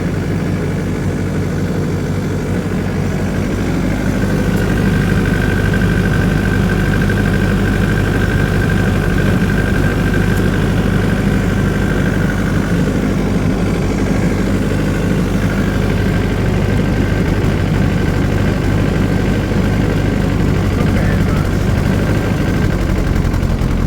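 Diesel generator engine running hard under a load bank, a steady low drone that gets louder about four seconds in, with a faint high whine over it for several seconds after. The full load is burning off carbon built up in the exhaust from wet stacking (long underloaded running).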